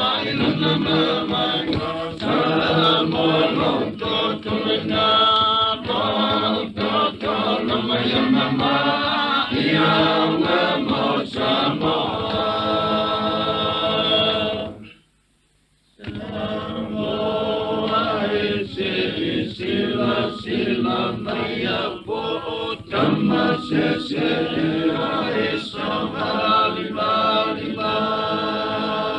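Choir of voices singing a traditional Samoan song. About fifteen seconds in, the singing cuts off for about a second, then starts again.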